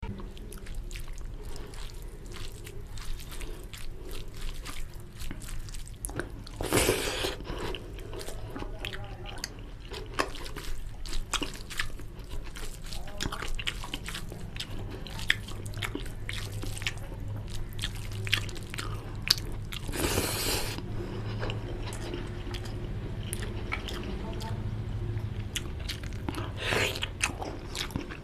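Fingers mixing rice and mutton curry by hand, close to the microphone: a steady run of small wet clicks, with two louder bursts about seven and twenty seconds in.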